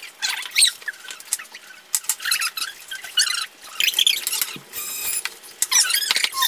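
Several people crunching Hot Cheetos, an irregular run of crisp crackling bites and chews.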